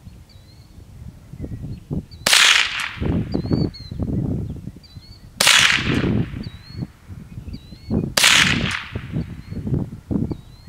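Three shots from a Ruger 10/22 rifle firing .22 Long Rifle, roughly three seconds apart. Each is a sharp crack with a short fading tail.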